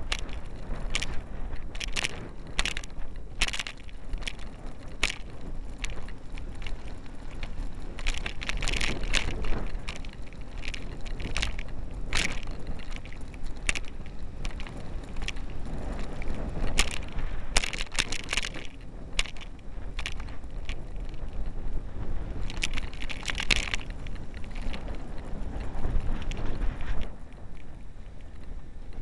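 Low road and engine rumble of a car driving on wet streets, with frequent irregular clicks and knocks from a loosely mounted 808 keychain camera rattling in its mount. Now and then there is a brief rush of hiss.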